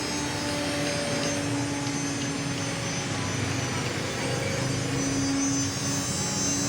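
CNC router running as it mills wood: a steady machine whine and hum over a broad hiss, its tones shifting a little in pitch as it cuts.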